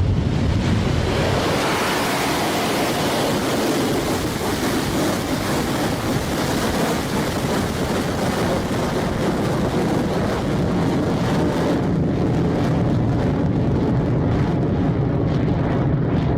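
Electron rocket's nine Rutherford first-stage engines at liftoff: a loud, steady rushing roar that gains a strong hiss about two seconds in. The high hiss thins after about twelve seconds.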